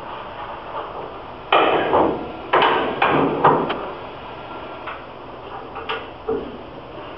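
Latches and fittings on the end door of a Premier Mercury indent length separator being undone by hand, a tool-free release for changing its cylinder. There is a series of sharp clacks and knocks: four loud ones in the first half, then a few lighter ones.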